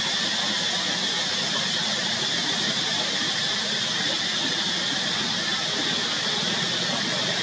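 Steady outdoor background noise: an even high-pitched hiss or drone with a low rumble beneath, unchanging throughout, with no distinct calls or knocks.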